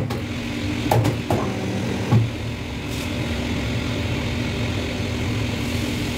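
Double-die paper plate making machine running with a steady motor hum, with a few sharp clunks about one and two seconds in.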